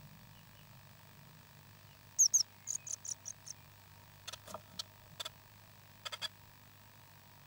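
Hatching baby birds peeping: a quick run of about seven short, high-pitched chirps about two seconds in, followed by a few faint clicks and taps.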